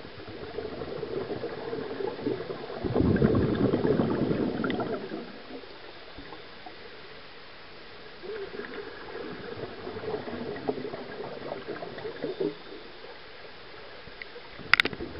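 Scuba divers' exhaled bubbles from their regulators, heard underwater: a loud rush of bubbles about three seconds in lasting about two seconds, then a longer, lighter run of bubbles later, over a steady underwater hiss. A sharp click near the end.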